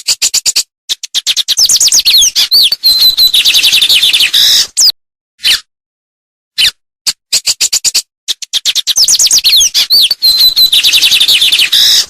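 A songbird singing the same song twice. Each bout opens with a quickening run of sharp ticks and rolls into fast, high whistled trills and slurs. The bouts are separated by dead silence, as in a looped tutor recording.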